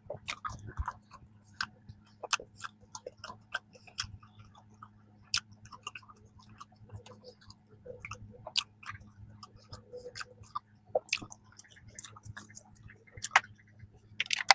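Close-miked chewing of soft peanut cream bread: irregular wet mouth clicks and smacks, several a second, over a faint steady low hum.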